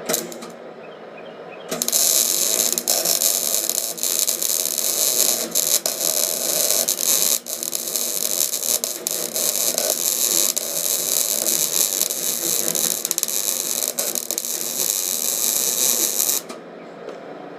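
MIG welding arc run with a short wire stick-out: a steady, loud crackling sizzle that starts about two seconds in and cuts off sharply shortly before the end. With the wire this short the arc burns more material than it needs.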